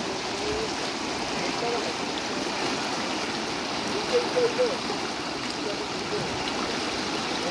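River water flowing, a steady rushing noise, with brief distant voices about four seconds in.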